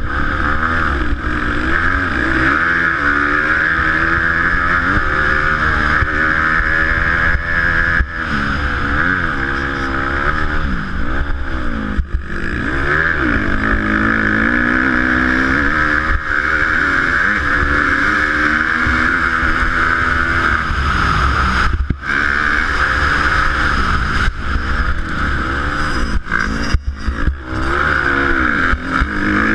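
Honda dirt bike engine revving up and falling away again and again as the rider works the throttle and gears, with a steady rush of wind on the helmet-mounted microphone. Near the end the engine drops out briefly several times.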